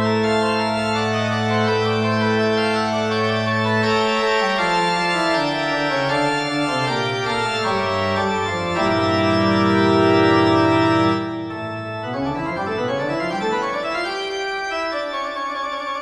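Organ music: held chords over a bass line that steps downward, then a rising run of notes near the end.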